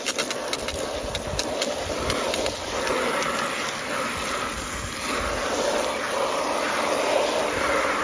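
Garden hose spraying water through a cotton T-shirt into a bucket, a steady rushing and splashing that rises and falls slightly as the stream moves.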